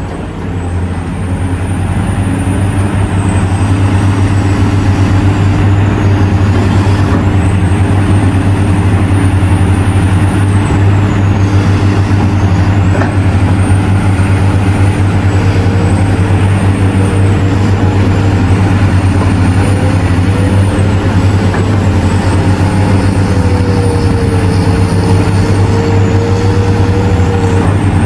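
Large diesel engines of mining excavators and haul trucks running steadily under load. A high whine rises and falls every few seconds.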